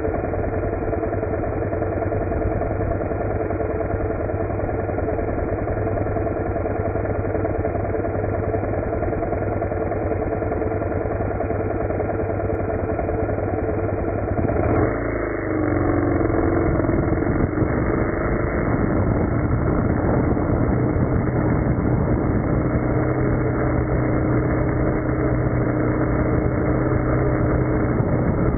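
Snowmelt-fed mountain waterfall tumbling over rocks: a loud, steady rush of water. Its tone changes abruptly about halfway through.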